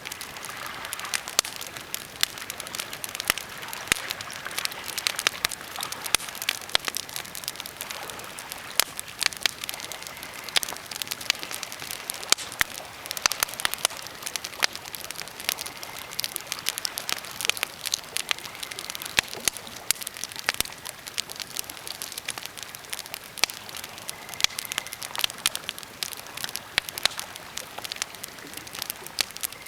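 Birch and pine campfire crackling: dense, irregular snaps and pops of varying loudness over a steady hiss.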